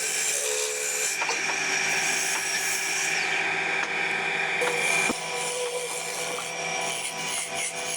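Wood lathe running, with a cutting tool scraping against the spinning wood in a steady, rasping hiss. About five seconds in there is a click, and the cut continues slightly quieter.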